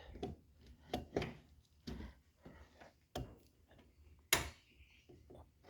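A series of irregular clicks and knocks from hands working the vehicle's controls and switches, with one sharper, louder click a little over four seconds in.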